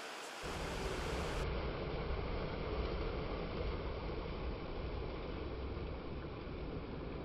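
Steady rushing of wind and sea surf, with wind rumbling on the microphone from about half a second in.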